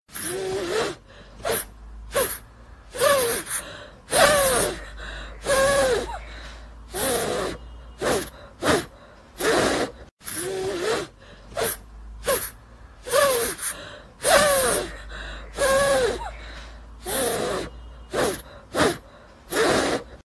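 Baby dwarf hamster making short, sneeze-like gasping squeaks, about one a second. Each squeak is a breathy hiss with a pitch that rises and then falls.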